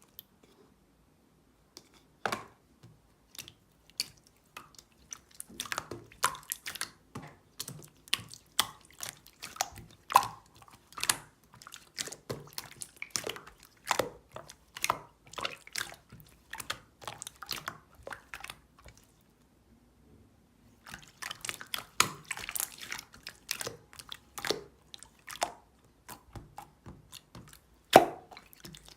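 Rapid, irregular wet clicks and smacks close to the microphone, pausing for about two seconds about two-thirds of the way through.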